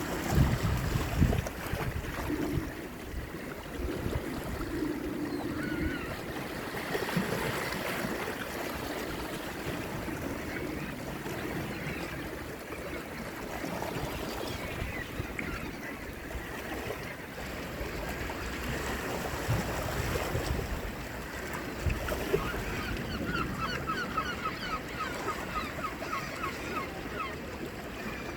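Baltic Sea waves washing on the shore, a steady rushing surf with bird calls over it, including a quick run of short chirps near the end.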